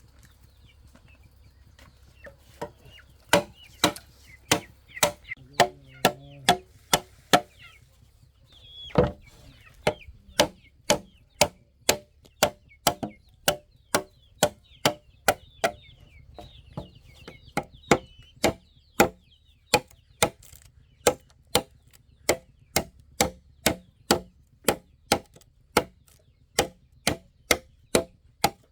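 Bamboo being chopped with a blade: a long run of sharp, evenly paced strokes, about two a second, with a short pause early on. Chickens cluck and chirp faintly underneath.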